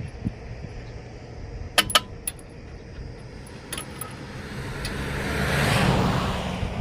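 Several sharp metallic clinks, then a passing vehicle whose noise swells and fades about five to six seconds in, over a steady low rumble.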